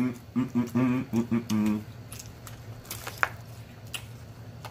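A person's voice for about the first two seconds, then clicks, rustling and a brief squeak of a black plastic takeout container lid being handled and lifted.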